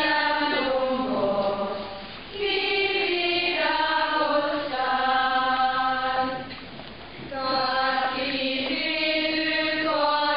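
A congregation singing a church hymn together in unison, in long held phrases with short breaks between lines about two seconds and about seven seconds in.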